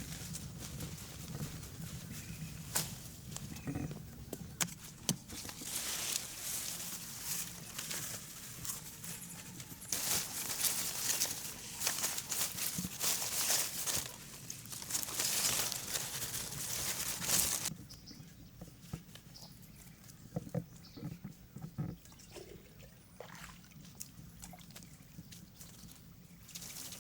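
Water pouring and sloshing, with small clicks and splashes; it stops abruptly about eighteen seconds in, leaving a quieter stretch with a few light knocks.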